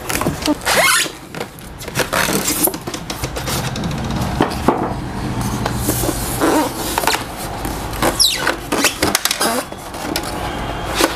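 Unpacking a table-top sewing machine: cardboard box flaps and polystyrene foam packing rustling, scraping and knocking in a quick run of short, sharp sounds, with a couple of brief squeaks about eight seconds in.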